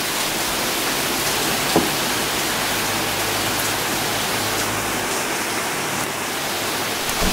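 Heavy hurricane rain pouring steadily onto trees and a wooden balcony deck, an even hiss throughout.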